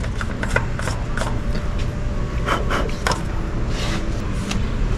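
Plastic engine oil filler cap being twisted off the valve cover by hand through a rag: a run of short clicks and rubbing scrapes over a steady low hum.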